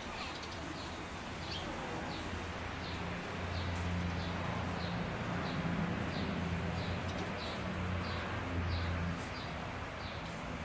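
A bird repeats a short, high, falling chirp about twice a second over a steady outdoor hiss. A low engine hum comes in about three seconds in and drops away near the end.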